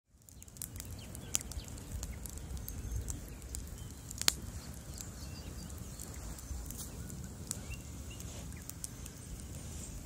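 Large wood-plank bonfire burning: a steady low rumble of flames with scattered sharp crackles and pops from the burning wood, the loudest pop about four seconds in. The sound fades in at the very start.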